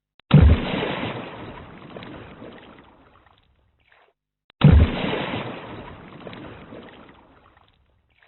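Water jet sound effect: a sudden spurt of water that starts with a low thump and trails off over about three seconds, heard twice.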